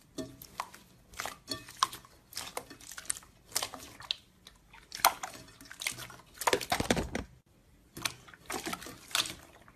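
Slime being squeezed and pressed by hand, giving repeated clusters of small wet squelches and crackling pops, with a fuller squelch about six and a half seconds in.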